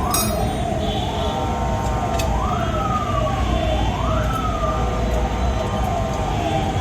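An emergency vehicle siren wailing. Its pitch rises quickly and falls slowly over and over, about every one and a half to two seconds, over a steady low rumble.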